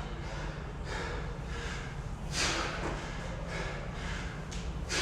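A person breathing hard mid-workout, with forceful exhalations coming about once a second, over a steady low hum.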